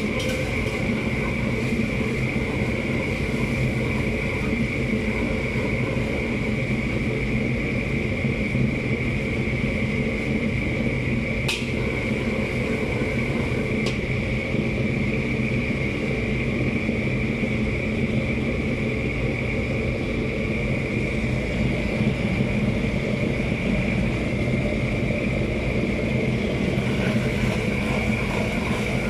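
Steady roar and hum of a commercial gas wok station, with a constant high whine on top. Two short clicks come about halfway through.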